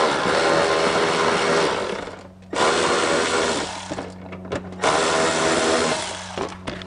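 Cordless electric ratchet running in three bursts of about two seconds each, backing out the 8 mm bolts that hold a splash panel up.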